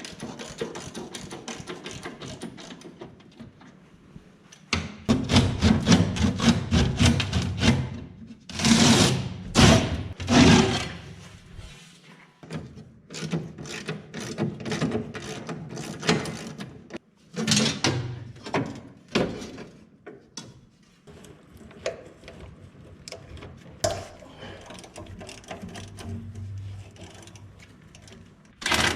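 Irregular metal clanks, knocks and rattles of hand-tool work on an excavator, with a busier stretch about five seconds in and several sharp strikes.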